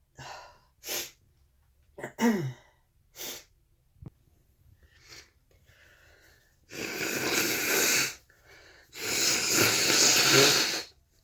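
A person sniffing and sneezing, one sneeze with a falling voiced 'choo' about two seconds in. Later come two long noisy blows of a second or two each, a stuffed-up nose being blown into a handkerchief.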